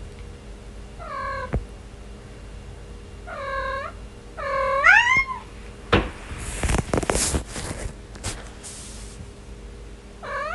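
A cat meowing: three short meows about a second apart, the third rising in pitch, then a few seconds of scratchy noise, and another rising meow near the end.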